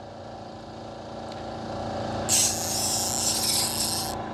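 Spinning reel (Daiwa 15 Exist 2003C) whirring as line is wound in fast on a hooked hairtail, from about two seconds in until near the end, over the steady hum of the fishing boat's machinery.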